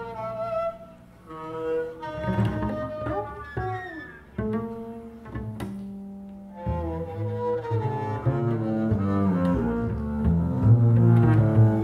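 Two double basses improvising, with sustained bowed notes, pitches that slide up and down, and a few sharp attacks on the strings. The playing swells louder on deep low notes near the end.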